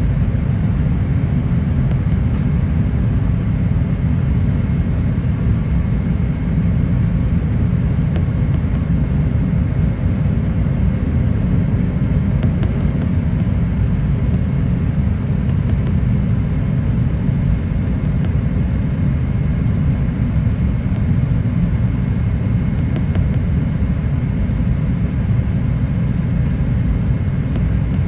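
Cabin noise inside a Boeing 787-8 Dreamliner on approach: a steady, deep rumble of engine and airflow noise heard through the fuselage, with a faint steady whine above it.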